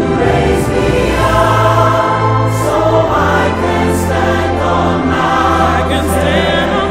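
Music: a choir singing sustained lines over a held bass accompaniment.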